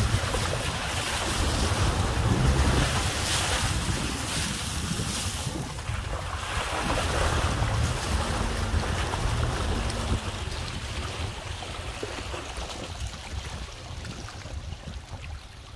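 Floodwater rushing and flowing across the ground, heard through wind buffeting the microphone. The sound eases over the last few seconds.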